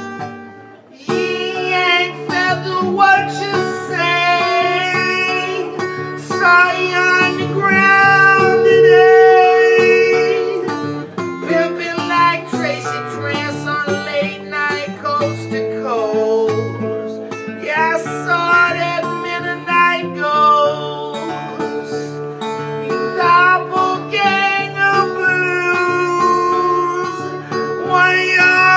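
A man singing live while strumming and picking an acoustic guitar; after a brief quieter moment of guitar alone, the voice comes in about a second in and carries on over the guitar.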